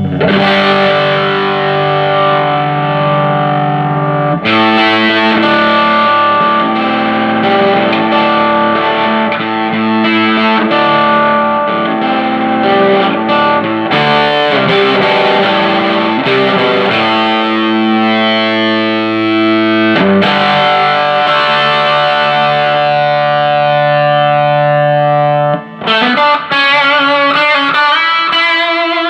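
Distorted electric guitar played through a Fender Hot Rod Deluxe tube combo amp: mostly held chords that change every few seconds, then quicker picked notes near the end. The amp is working again after repair, with a fresh pair of 6L6GC power tubes.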